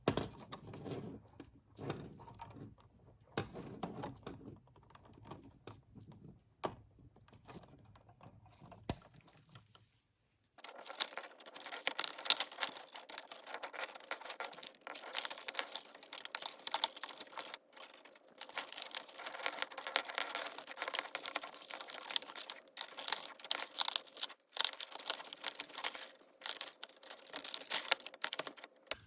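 Electrical wires and WAGO lever connectors being handled in a switch box: scattered small clicks and taps, then after a brief drop-out a third of the way in, a denser run of quick ticks and rustling.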